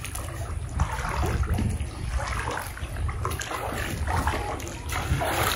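River water splashing and sloshing in irregular bursts, over a steady low rumble.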